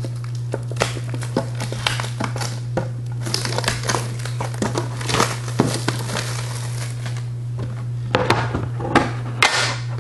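Plastic shrink-wrap crinkling and crackling in irregular bursts as it is torn off a Pokémon card box.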